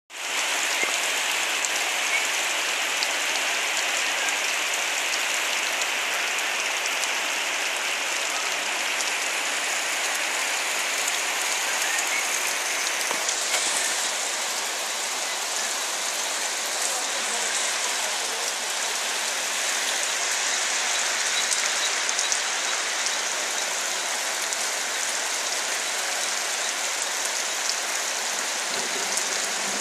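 Steady rain falling, an even hiss of drops that holds the same level throughout.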